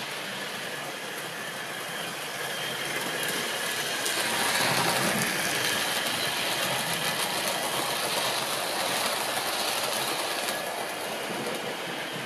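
Older Hornby tender-driven OO gauge model locomotive, an early B17, running with a train of coaches: a steady motor hum and whine with wheels rumbling on the track. It grows louder about four seconds in as the train passes close, then eases a little near the end.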